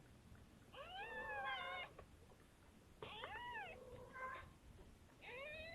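A cat meowing three times, each call rising and then falling in pitch.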